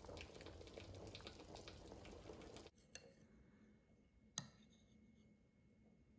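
Chicken and chickpea stew simmering in a pot: a steady bubbling with many small pops, which stops abruptly under three seconds in. After that it is near quiet, with two light clicks, the second sharper.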